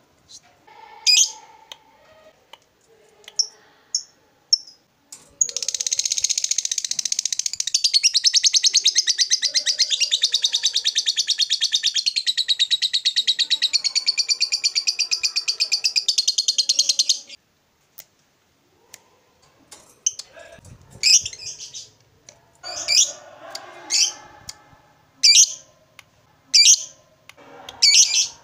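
Lovebird singing the long chatter that hobbyists call 'ngekek panjang': a rapid, unbroken run of high notes lasting about twelve seconds. Short, sharp single calls come before it and again, roughly one a second, after it stops.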